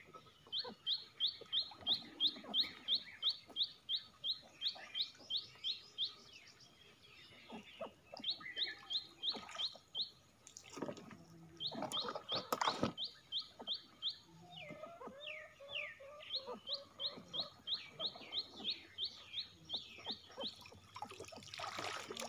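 A bird calling a rapid series of short, high, clipped notes, about three a second, in several runs with pauses between them. A few sharp knocks sound around the middle.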